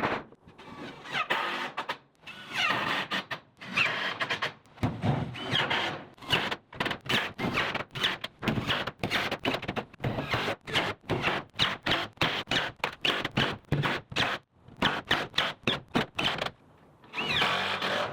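Rapid rhythmic knocking, about four knocks a second, with several short high squeals in between, from work on a wooden shed roof.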